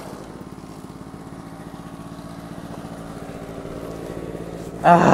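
Two-stroke scooter engine idling with a fast, even beat, then revved hard with a sudden loud burst just before the end.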